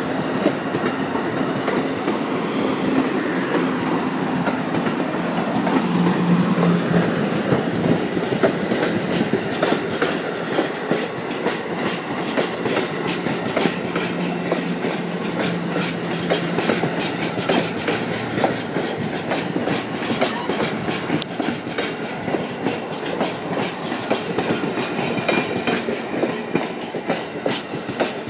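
Amtrak passenger coaches passing at speed close by: a steady rush of wheels on rail with rapid clickety-clack over the rail joints. The clicks come thicker in the second half.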